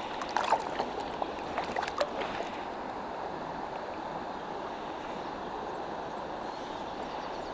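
Steady rush of shallow river water flowing around the wading angler, with a few brief clicks in the first two seconds.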